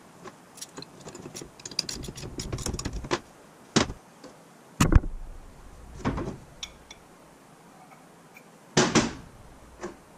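Metal sockets and a steering box housing being handled on a metal workbench, clinking and knocking: a run of small clicks over the first few seconds, then a handful of louder knocks, the loudest about five seconds in.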